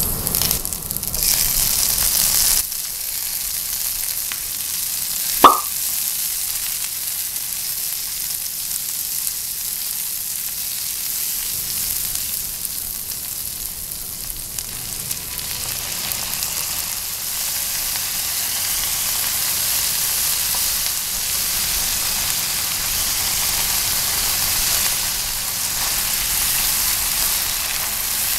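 Hot oil sizzling in a frying pan as green chillies, onion and capsicum fry, stirred with a spatula. The hiss is louder in the first couple of seconds, and a single sharp click about five seconds in stands out.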